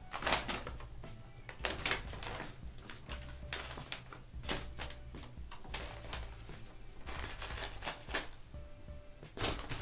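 Paper and small plastic packaging rustling and crinkling in irregular bursts as supplies are unpacked and handled, over faint background music.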